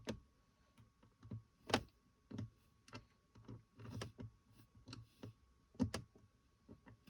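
Faint, scattered clicks and light knocks of small hard objects being handled, irregular and spaced apart, the sharpest about two seconds in and again about six seconds in.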